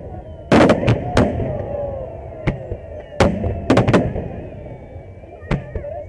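Fireworks salute: aerial shells bursting overhead in sharp bangs, about ten in all. A volley comes about half a second in, a quick run of three falls a little before the four-second mark, and two more come near the end.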